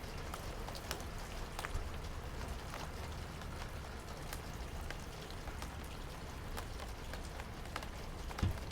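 Steady rain with many individual drops ticking close by, and one soft low thump near the end.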